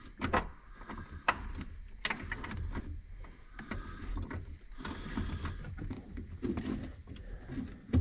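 Hand ratchet on a long extension being turned in short strokes to start a bolt, giving scattered, irregular metallic clicks and light knocks over a steady low hum.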